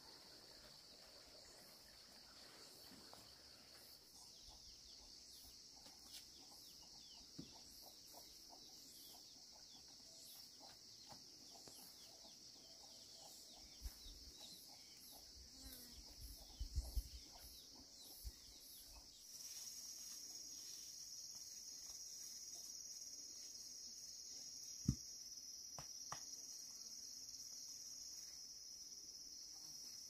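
A steady, high insect chorus of crickets or cicadas. About 19 s in it rises a little in pitch and gets louder. A few low thumps come around the middle, and there is one sharp knock about 25 s in.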